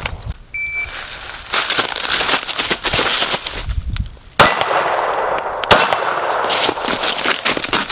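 Two 9mm shots from a SIG P320 pistol, about a second and a half apart, each followed by a ringing tone.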